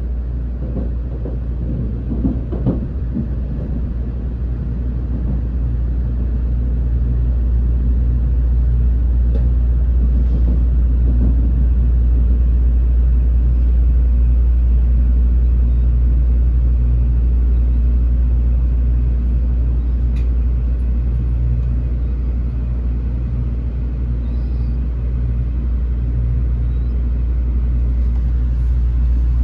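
Cabin noise of a Tokaido Shinkansen Kodama train running into a station: a steady low rumble that swells slightly over the first dozen seconds, with a few faint clicks about two to three seconds in.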